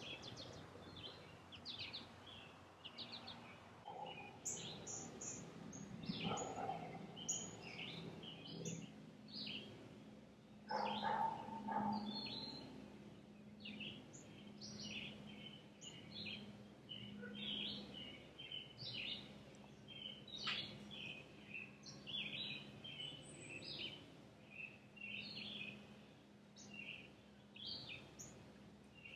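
Faint outdoor birdsong: many small birds chirping and singing in short high phrases, over a steady low hum. A brief louder, lower sound comes about eleven seconds in.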